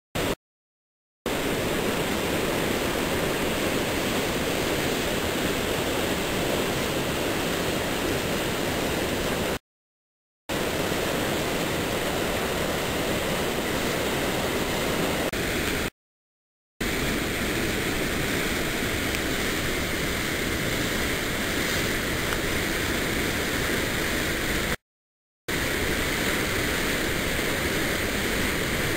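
Whitewater of a river in high flow rushing over a waterfall and rapids through a rocky gorge: a steady, even rush of water. The sound cuts out briefly four times.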